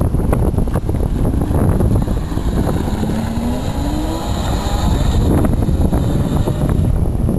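Single-seat kart driving away, its drive giving a rising whine as it speeds up about halfway through. Heavy wind buffets the microphone throughout.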